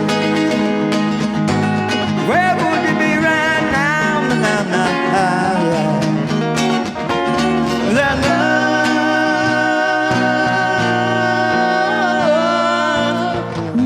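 Two acoustic guitars strumming the song's rhythm under a lead melody line that slides between notes. In the second half the melody settles into one long held note.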